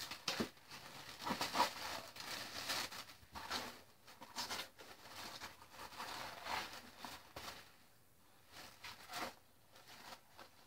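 Paper and packaging rustling and crinkling as items are handled and unwrapped by hand, in irregular bursts with small clicks, dying down about eight seconds in.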